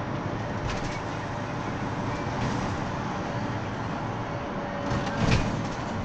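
Cabin noise of a Mercedes-Benz Sprinter minibus on the move: steady engine and road noise with interior rattles. A couple of rattling knocks stand out, the loudest about five seconds in.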